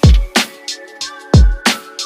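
Electronic background music with a heavy beat: deep kick drums whose pitch drops after each hit and sharper high hits, over held synth chords.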